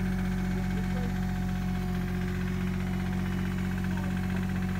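Kobelco mini excavator's diesel engine running steadily while the boom is worked.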